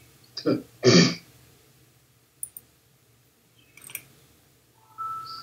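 A man clearing his throat twice in quick succession, the second loudest, followed by a few faint clicks and a short two-note electronic beep rising in pitch near the end.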